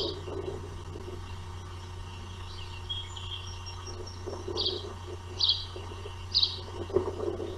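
Ospreys chirping: short, high, whistled calls, one at the start and then several about a second apart in the second half, over a steady low hum.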